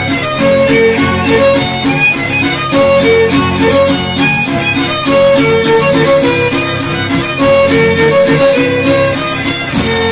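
Son huasteco instrumental break: a violin plays a quick, repeating melody over a steady strummed rhythm from jarana and guitar.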